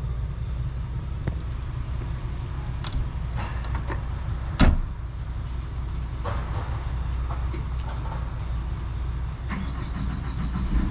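Low, steady engine rumble of a running vehicle, with a few light knocks; the sharpest knock comes about four and a half seconds in.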